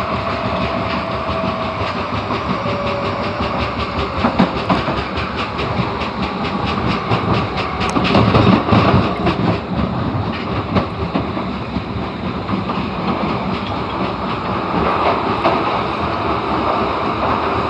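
Osaka Metro Tanimachi Line 22 series subway train running underground between stations. Steady rolling noise with rapid clickety-clack from the wheels, swelling to a heavier rumble about halfway through.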